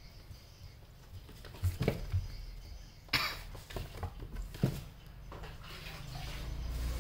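A kitten scrabbling and bumping about inside a cardboard box: a scatter of light knocks and scratches on the cardboard, most of them between about two and five seconds in.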